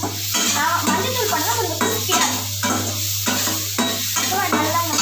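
A steel spatula stirring and scraping onions and tomatoes sizzling in oil in a stainless-steel kadai. A voice runs over it throughout.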